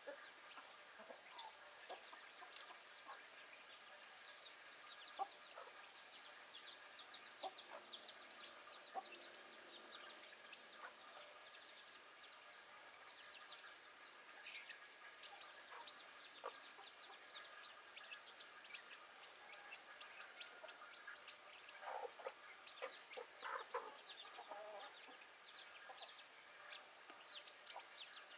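Backyard chickens clucking faintly in short, scattered calls, with a livelier run of louder clucks about three quarters of the way through.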